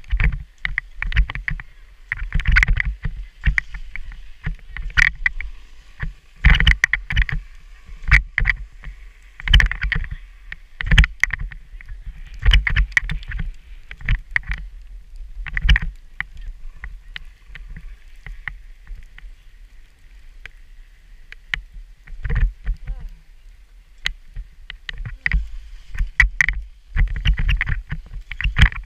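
Skis sliding and scraping over packed groomed snow, with wind rumble and irregular knocks on the action camera's microphone. There is a quieter, smoother glide about two-thirds of the way through.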